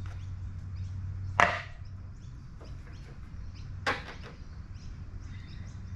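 Two sharp plastic clacks about two and a half seconds apart, the first the louder, as the air filter cover is unclipped from a lawn mower engine and set down on concrete.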